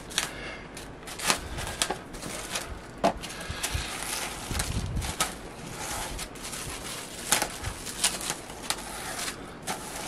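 Glad Press'n Seal plastic wrap crinkling and crackling as it is stretched over a plastic egg box and pressed down by hand, a run of irregular sharp crackles.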